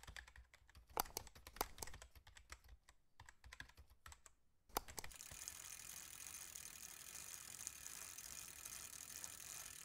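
Faint, irregular clicking, like keys being typed, for about the first five seconds, stopping briefly before one last click. A steady faint hiss follows.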